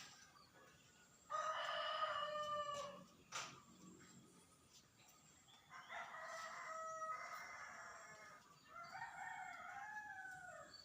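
Rooster crowing three times, each crow lasting one and a half to two seconds; the last crow rises and then falls away at its end.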